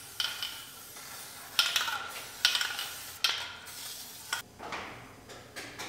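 Aerosol can of rust-preventive wax spraying brake lines in several short hissing bursts.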